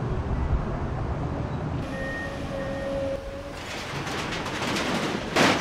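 Komatsu 240 hydraulic excavator demolishing a small building: its diesel engine runs with a low rumble, then sheet-metal roofing and wood debris crash and scrape as the machine tears into it, with a loud crash near the end.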